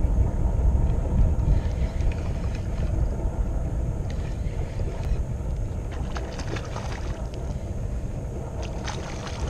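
Steady low wind rumble on the microphone aboard a fishing kayak. In the second half come scattered light clicks and small splashes as a hooked trout thrashes at the surface beside the kayak.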